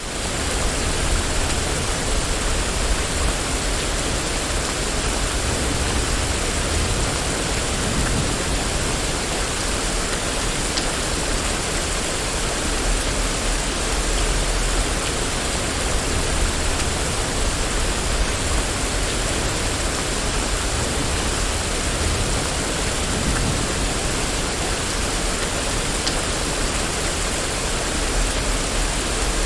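Steady rain falling on a street, a dense even hiss, with a low rumble underneath that swells and fades.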